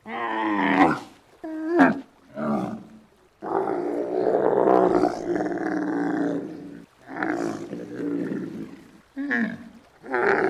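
Giraffe vocalising: a string of short, pitched calls, then one long call lasting about three and a half seconds, then more short calls.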